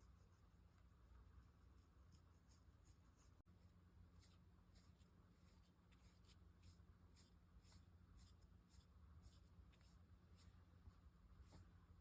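Faint, quick brush strokes through a chinchilla's fur, soft scratchy sweeps about two to three a second.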